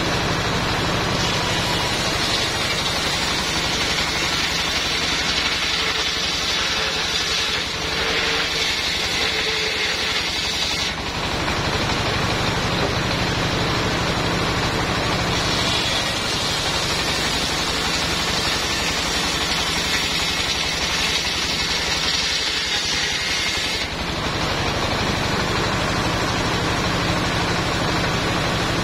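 Circular saw blade driven by a single-cylinder diesel engine, running steadily while a log is ripped lengthwise. The blade's high cutting whine grows louder twice, from about 7 to 11 seconds in and from about 15 to 24 seconds in, as it bites into the wood.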